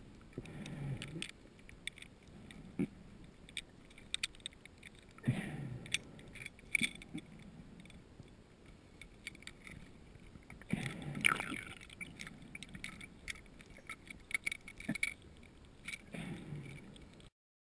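Scuba regulator heard underwater: bursts of exhaled bubbles gurgling out about every five seconds, with small clicks and crackles in between.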